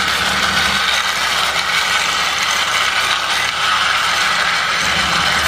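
Plastic toy ambulance pushed by hand along a rough concrete ledge, its wheels and running gear giving a steady rolling whirr.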